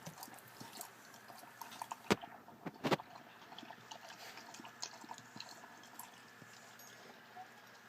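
Brittany mother dog licking with her wet tongue: a run of small wet clicks and smacks, with two louder clicks about two and three seconds in.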